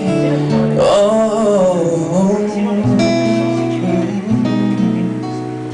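Acoustic guitar strummed as song accompaniment, with a man's voice singing a long, wavering wordless run over it in the first half; from about three seconds in the guitar chords carry on mostly alone.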